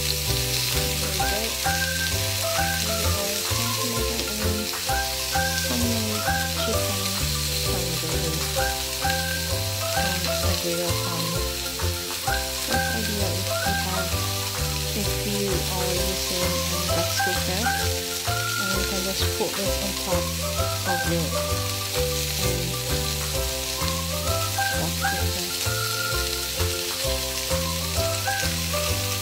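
Tandoori chicken skewers sizzling steadily on a hot ridged griddle pan, with background music and a repeating bass line under the sizzle.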